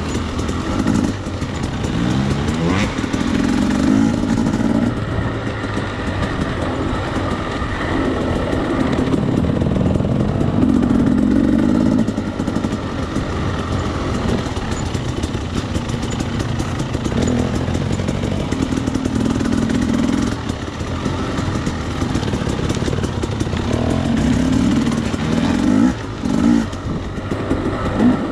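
Husqvarna enduro dirt bike engine on-board, revving up and shutting off again and again as the bike is ridden along a rough, twisting trail. It gives several quick rising revs about two seconds in and again near the end.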